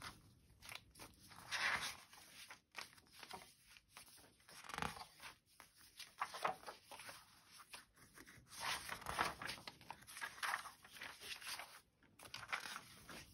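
Pages of a handmade junk journal, scrapbook paper and old book pages, being turned over by hand: an irregular series of soft paper swishes and rustles.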